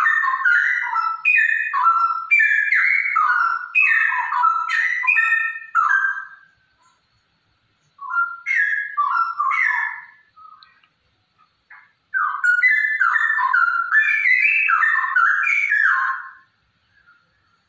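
Straw-headed bulbul (cucak rowo), given as a female in full song, singing loud, rich, bubbling whistled phrases. There are three runs of song: one until about six seconds in, a short one around eight to ten seconds, and another from about twelve to sixteen seconds, with pauses between.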